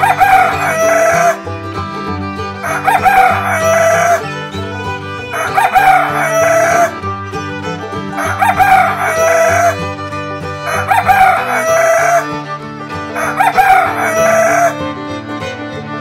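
Rooster crowing six times in a row, each call about a second and a half long and evenly spaced about two and a half seconds apart, over background music with a fiddle.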